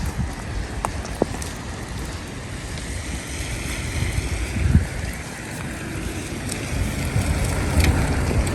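Wind buffeting the microphone, with irregular low thumps over a steady outdoor hiss that swells slightly around the middle.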